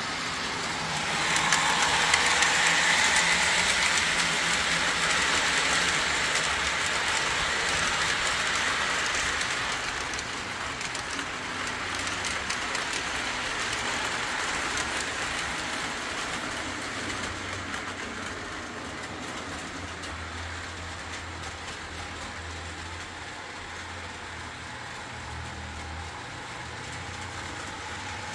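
Postwar Lionel O gauge locomotives, driven by Pullmor motors, running on three-rail track. The sound is louder for the first ten seconds or so, then settles into a quieter steady run.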